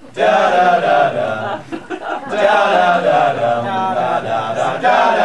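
Group of men singing together a cappella in a chant-like style, several voices holding drawn-out notes.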